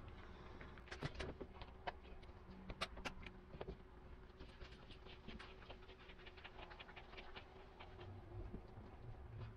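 Plastic spreader scraping and tapping on a mixing board as Bondo body filler is mixed. It makes a run of quick, faint scrapes and clicks, with a few sharper ones in the first three seconds, over a faint steady hum.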